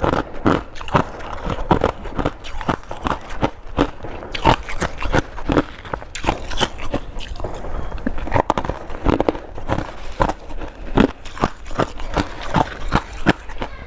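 Humidifier freezer frost being bitten and chewed: an irregular run of crisp crunches, several a second.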